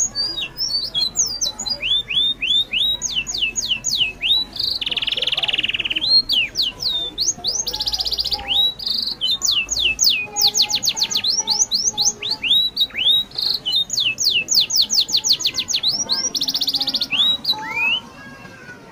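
A bird singing: fast runs of high, downward-sweeping whistled notes, broken a few times by harsher buzzy notes. It stops abruptly near the end.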